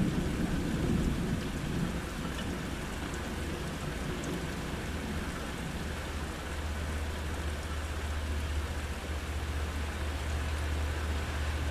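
Steady rain hissing during a thunderstorm, with the low rumble of a thunderclap dying away over the first couple of seconds. A low steady rumble comes in about halfway through.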